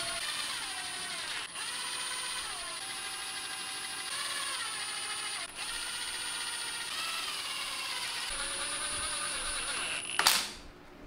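Pneumatic impact wrench running down the perimeter bolts on a pressure-reducing regulator's spring chamber. Its air motor whines, the pitch falling and rising as the bolts spin down, with two brief pauses. It ends in a short, loud burst shortly before the end.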